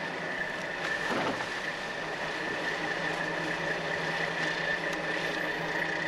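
Fishing boat's engine running steadily, a constant drone with a steady high whine above it.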